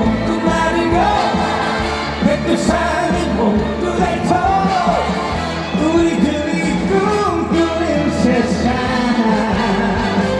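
Amplified trot song played live over a stage PA: a steady backing track with bass and beat under a bending lead melody.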